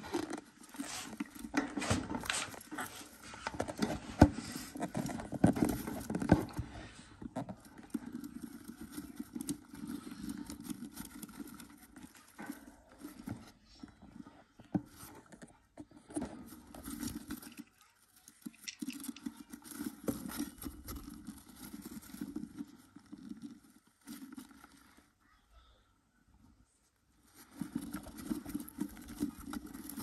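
Budgerigar moving about in a wooden nest box, her claws tapping and scraping on the wooden floor amid feather rustling. The sound comes in irregular bursts of clicks, busiest in the first several seconds, with short quiet pauses later.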